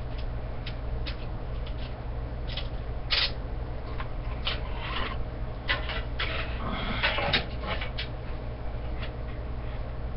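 Hand-handling noises from assembling a TV antenna: sharp clicks and knocks of its metal rod elements, then rustling of clear plastic packaging, over a steady low hum.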